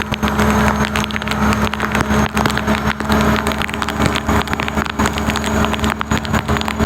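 A fishing boat's engine running with a steady drone, under wind noise and many sharp splashes and taps of water.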